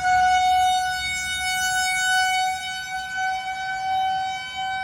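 Outdoor tornado warning siren sounding a steady wail. Its pitch creeps slightly upward and its loudness slowly swells and fades, signalling a tornado warning in effect.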